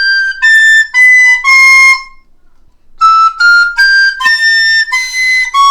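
Plastic recorder played in its high second octave, short notes stepping upward in a scale. The first run ends about two seconds in, and after a brief pause a second rising run starts and climbs to a held top note.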